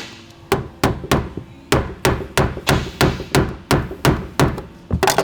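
Hammer striking a screwdriver set against a car's plastic fuel pump locking ring, knocking it round: a steady run of about fourteen sharp metallic taps, roughly three a second.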